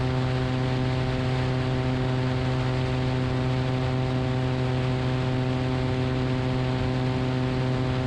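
Cessna 180's six-cylinder piston engine and propeller in a climb at climb power, a steady, even drone at one pitch over a steady hiss.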